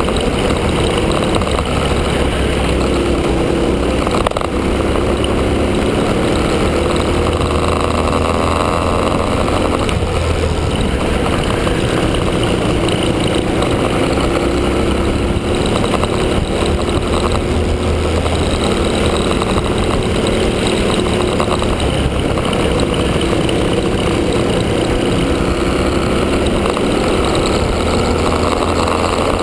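Honda Cadet kart's single-cylinder four-stroke engine running at racing speed on track. Its pitch climbs and drops repeatedly as the kart accelerates and eases off, over a steady rushing noise.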